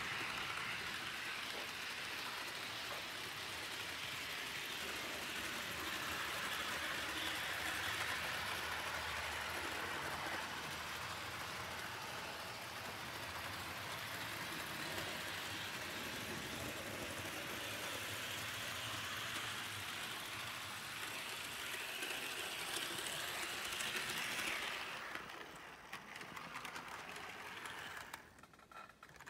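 HO-scale Lima D342 model diesel locomotive pulling its train of passenger cars around the track: a steady whir and rattle of the motor and the wheels on the rails, dropping away about 25 seconds in.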